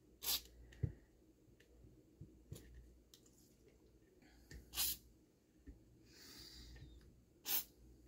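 Mostly quiet, with three short breathy bursts a few seconds apart, like sharp exhales or sniffs, and a few faint clicks from hand tools working at a rust-stuck spur gear on its shaft.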